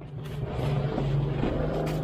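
Plastic mailer packaging rustling and crinkling as it is handled, with a sharp crackle near the end, over a steady low hum.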